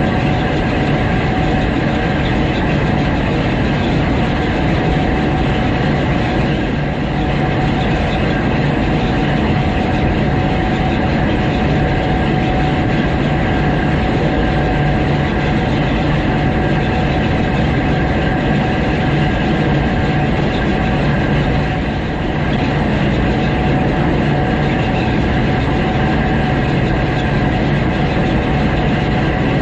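Gleaner S98 combine harvester running while picking up oat swaths: a steady, loud mechanical drone with a constant whine over it.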